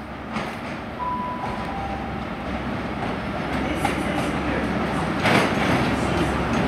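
High Speed Train (InterCity 125) arriving, its Class 43 diesel power car growing steadily louder as it approaches, with wheels clicking over the rail joints.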